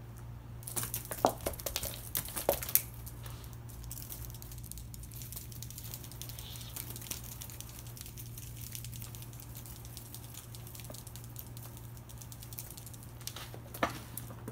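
A cat playing with a wand toy on a wooden floor: rustling and sharp taps, bunched in a quick cluster in the first few seconds, then scattered ticks, and a couple more taps near the end. A steady low hum runs underneath.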